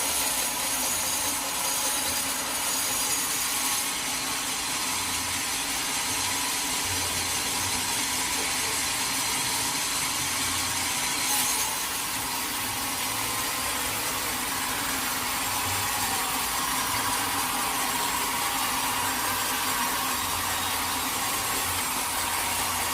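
Sawmill saw cutting through teak wood, running steadily through the cut.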